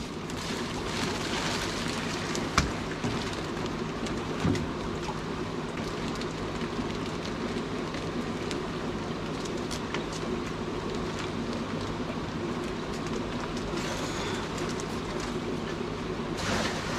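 Steady splashing of running water over a low, even hum, with two small knocks about two and a half and four and a half seconds in.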